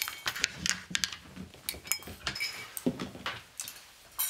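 Metal surgical instruments clicking and clinking as they are handled and set down, in a series of short, irregular taps.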